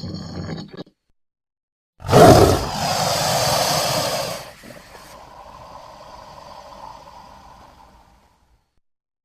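Animal roar sound effect presented as a crocodilian's call. An earlier call breaks off just under a second in, and after a short silence a loud, rough roar starts suddenly about two seconds in. It holds for about two and a half seconds, then fades into a quieter, drawn-out tail that dies away about six seconds in.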